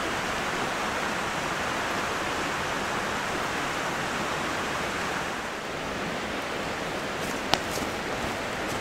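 Mountain stream rushing steadily over rocks. A single sharp click sounds near the end.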